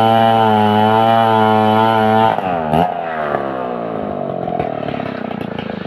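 A held, chant-like droning tone cuts off about two seconds in. A chainsaw engine then drops in pitch and runs on with a rattling clatter.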